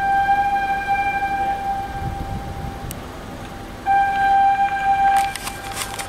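Warning horn or siren of a rock-blasting site sounding a steady single-pitch tone: one long blast of about three seconds, then a shorter blast about four seconds in, signalling the blast to the stopped traffic.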